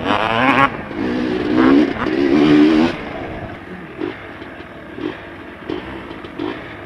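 Dirt bike engine revving hard with a wavering pitch for about three seconds, then dropping to a quieter low run with short throttle blips.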